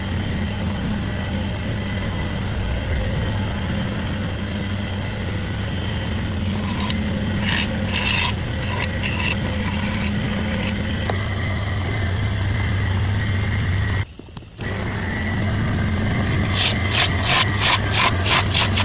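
A woodworking machine's electric motor running at a steady pitch, cut off briefly about fourteen seconds in, then running again. Near the end come quick, sharp strokes of a tool on wood, about three a second.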